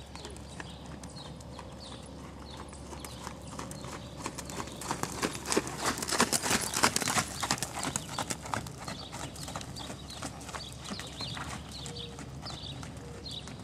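A horse's hoofbeats on sand arena footing as it is ridden past, growing louder to a peak about six seconds in as it passes close, then fading as it moves away.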